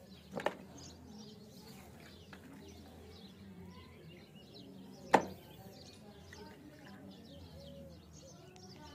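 Two sharp plastic knocks about five seconds apart, the second louder: hard plastic toy animal figures set down into the bed of a plastic toy dump truck. Birds chirp faintly in the background over a low steady hum.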